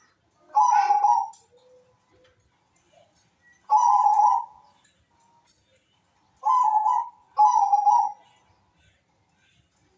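Zebra dove (perkutut) of the Bangkok voice type cooing: four short coos, spaced a few seconds apart, with the last two in quick succession.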